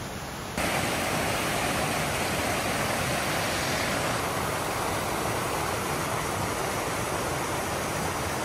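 Mountain waterfall rushing: steady, even noise of falling water that cuts in abruptly about half a second in, in place of a quieter hiss.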